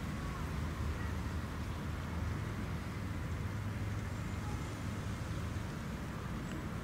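Steady low rumble of outdoor background noise with a faint hiss above it, unbroken throughout.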